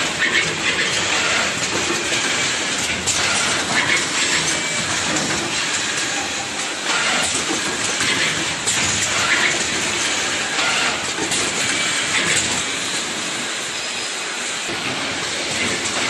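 Automatic wire-harness connector housing assembly machine running: quick, irregular mechanical clicks and clacks from its moving heads over a steady hiss.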